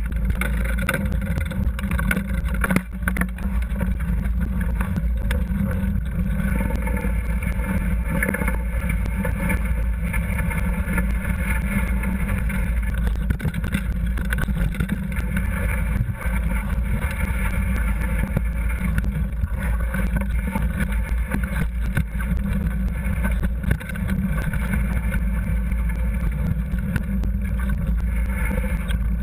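Downhill mountain bike running fast over a dirt forest trail: constant rattling, clicks and knocks from the bike and its mounted camera over roots and stones, under heavy wind noise on the microphone.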